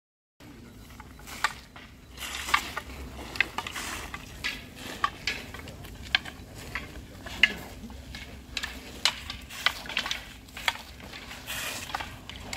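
Wooden aikido jo staffs clacking together in paired practice: sharp, irregular knocks from several pairs at once, about one or two a second and some in quick doubles, over a low steady rumble.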